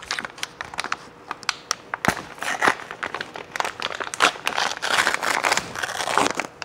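A packet of instant hot cereal being torn open and handled: the wrapper crinkles and crackles, with many small sharp clicks, busiest in the second half.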